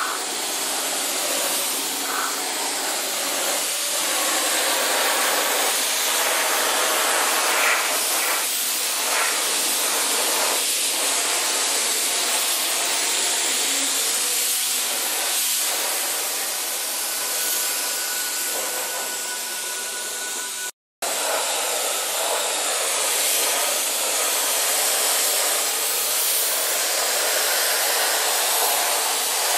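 Gravity-feed air spray gun spraying primer: a steady hiss of compressed air and atomised coating. It breaks off for a moment about two-thirds of the way through.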